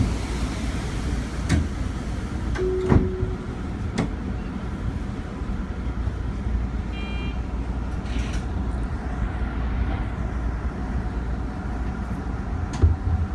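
Tobu Tojo Line commuter train running, heard from inside the carriage: a steady low rumble with a few sharp clicks and knocks.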